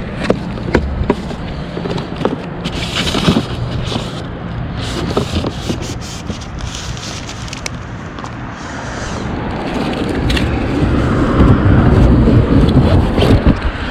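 Handling and rummaging through discarded items: scattered knocks, clicks and rustling, with a louder low rumble building about ten seconds in.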